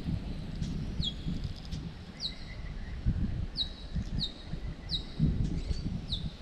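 A bird calling a short, high, falling note over and over, about one and a half times a second, over a low rumble with a few bumps.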